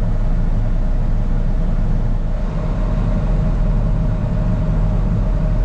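Semi truck's diesel engine idling steadily: a constant low rumble with a steady hum above it.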